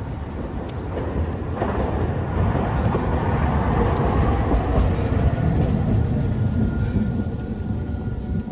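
Hiroden street tram car 802 running past on street-running rails, growing louder as it approaches and loudest a few seconds in as it passes close by, then easing off as it draws up at the stop. A faint thin whine is heard near the end.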